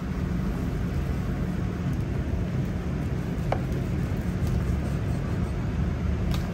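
Steady low rumble and hum of kitchen background noise, with a faint click about halfway through.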